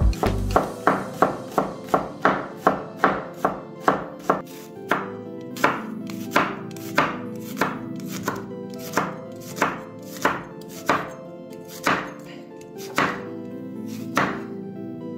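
Santoku knife chopping onion on a wooden cutting board: a quick run of knocks about three a second, then slower strokes about two a second that stop shortly before the end. Soft background music underneath.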